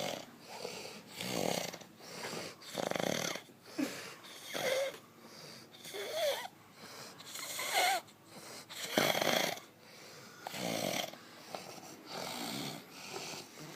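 A sleeping man snoring heavily while blowing bubbles at his lips: a raspy snore about every second, some breaths ending in short rising squeaky whistles.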